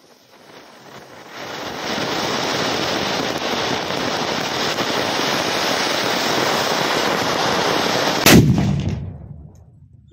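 Anar (flower-pot firework) fountain spewing sparks with a loud rushing hiss that builds over the first two seconds and holds steady. About eight seconds in a single loud bang goes off as the sutli bomb hung above it explodes, and the hiss dies away soon after.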